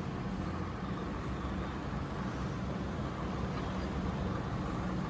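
Steady low background rumble of a restaurant dining room, with no voices and no distinct events.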